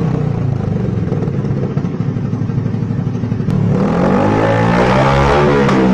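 Honda Beat scooter's single-cylinder engine breathing through an aftermarket stainless racing exhaust: it drops back to idle, then a little over halfway through is revved up quickly and held at high revs.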